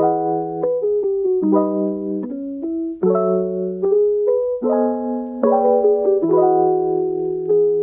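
Slow background piano music, single notes and chords struck about once a second.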